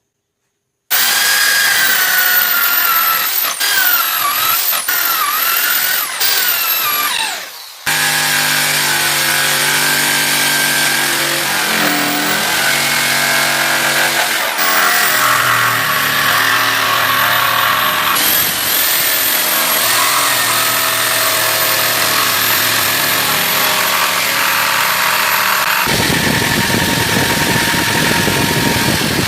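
Electric power tools working wood. A high-pitched tool starts abruptly about a second in, its pitch dipping again and again under load, and winds down after about seven seconds. Another tool then runs steadily, with an abrupt change to a rougher, noisier sound near the end.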